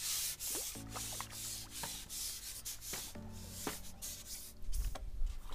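Background music with held chords that change twice, over repeated rough rubbing or rustling surges of noise.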